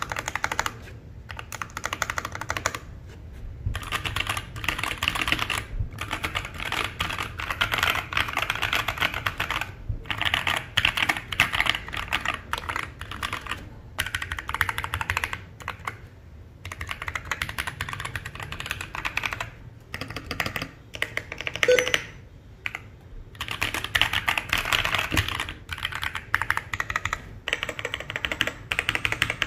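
Typing on a mechanical keyboard with lubed and filmed KTT Matcha switches. Rapid key clicks come in runs of a few seconds, with short pauses between them.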